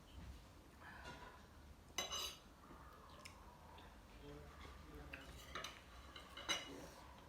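Cutlery clinking and scraping against plates and bowls while eating, with two sharper ringing clinks, one about two seconds in and one near the end.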